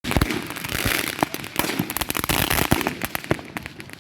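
Fireworks going off: a dense, irregular run of sharp bangs and crackling pops.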